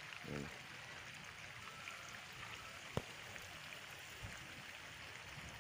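Faint steady rush of water pumped out of a drained fish pond and flowing from the discharge pipe, with one sharp click about three seconds in.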